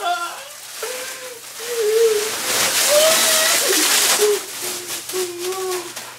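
Loose wrapped candies poured out of a plastic bag onto a heap of candy, a crinkling, rattling rush that builds about two seconds in and eases off after about four and a half seconds. A wordless voice hums and moans at times over it.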